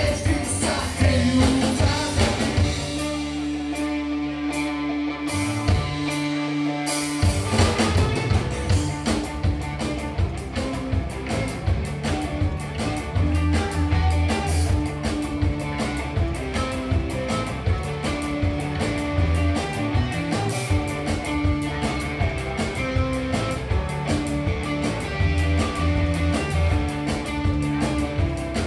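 Live rock band playing with electric guitars, bass guitar and a drum kit, with a singer. The drums drop out for a few seconds near the start over held low notes, then the full band comes back in.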